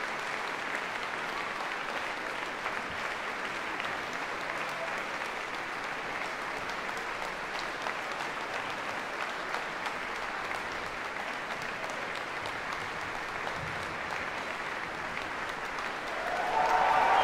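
Large concert-hall audience applauding: steady, sustained clapping that swells louder just before the end.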